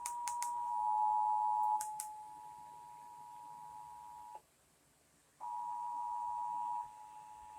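Emergency Alert System two-tone attention signal (853 and 960 Hz together), a steady electronic tone that sounds after the alert header's data bursts. It is loud for the first couple of seconds and then weaker. It cuts out for about a second midway, comes back loudly for over a second, then carries on faintly.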